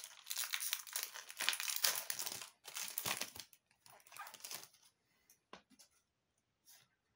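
Foil trading-card pack wrapper crinkling and crackling, dense for about three and a half seconds, then thinning to a few scattered crackles.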